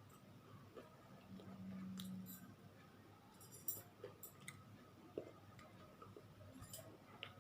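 Quiet eating sounds: faint scattered clicks and small crunches from a person chewing fried fritters, with a brief low hum a little over a second in.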